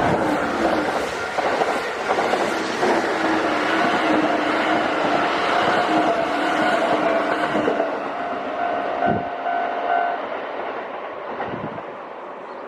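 Kintetsu electric train passing over a level crossing, its wheels running loud on the rails for about eight seconds, then fading as it moves away. The crossing's warning bell rings steadily under it and is heard clearly again as the train noise dies down.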